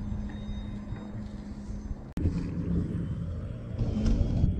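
EGO SNT2100 cordless electric snow blower running at full power in heavy wet snow: a steady motor hum under wind rumble on the microphone. About two seconds in, the sound breaks off with a click and carries on louder and more uneven.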